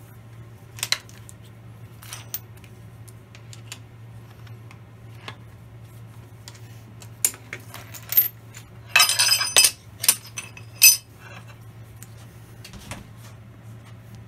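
Steel hold-down clamps, step blocks and a wrench handled on a cast-iron milling machine table as the clamps are loosened and taken off: scattered metal clinks, with a burst of ringing clanks about two-thirds of the way through. A steady low hum runs underneath.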